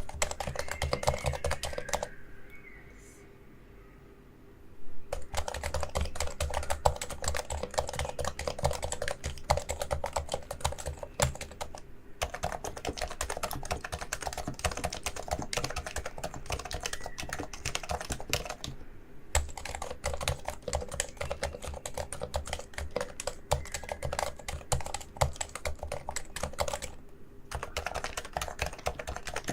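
Realforce Topre keyboard being typed on quickly: a dense run of soft keystroke thocks, stopping for about three seconds early on and briefly a few more times.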